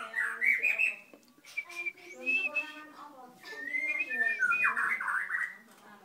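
Caged songbirds singing: three bursts of quick, varied whistled notes with short pauses between them.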